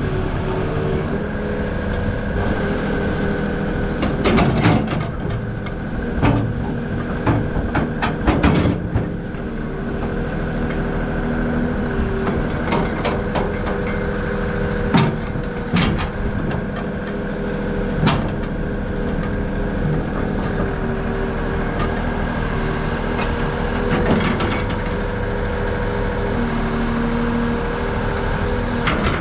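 Large excavator's diesel engine running steadily, with sharp knocks and clanks now and then as the machine works.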